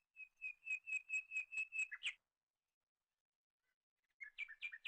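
A bird calling outdoors: a quick run of about nine clear, repeated whistled notes, about four a second, that stops about two seconds in. After a pause a second, faster run of notes starts near the end.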